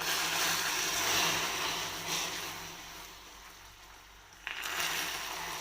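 Water poured into hot, dark caramelised sugar in a saucepan, hissing and sputtering as it hits the molten sugar. The hiss starts abruptly, dies down over a few seconds, then surges again with a second pour about four and a half seconds in.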